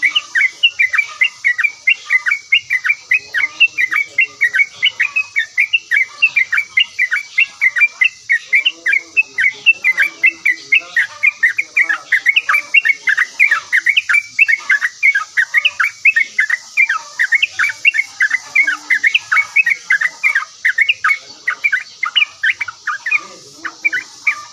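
Yellow-vented bulbul (trucukan) chattering steadily: rapid, repeated short chirps, several a second, over a steady high hiss.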